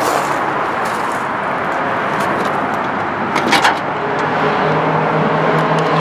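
Steady road traffic noise, with a car engine pulling away and rising in pitch over the last second or two. A brief clatter of clicks comes about three and a half seconds in.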